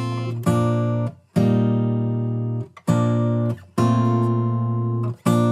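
Background music of strummed acoustic guitar: chords struck about five times, each ringing and fading before the next.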